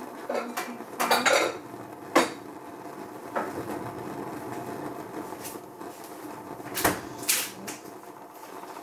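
Kitchen clatter of pots and utensils: a cluster of clinks about a second in, a sharp knock about two seconds in, and two more knocks around seven seconds in, over a faint steady hum.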